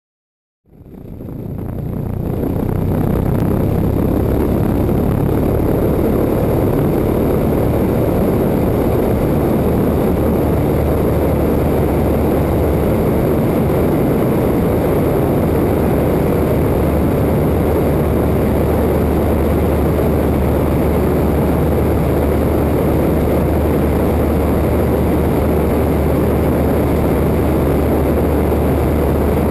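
Waco biplane's engine and propeller at full power through the takeoff roll and climb-out, a loud steady drone with wind rushing past. It fades in about a second in.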